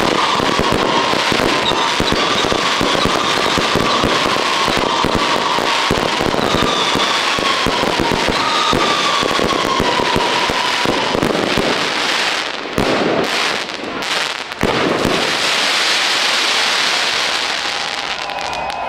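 Aerial fireworks going off: dense crackling and rapid popping from crackling comets and glittering stars, with a whistling tone that slides slowly down in pitch through the first half. A few loud bangs come about two-thirds of the way in, followed by a fizzing crackle that thins out near the end.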